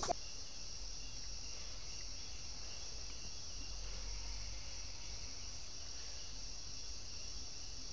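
Crickets trilling in a steady night chorus: a continuous high-pitched ring with a fainter lower tone beneath it. A brief clink of dishes right at the start.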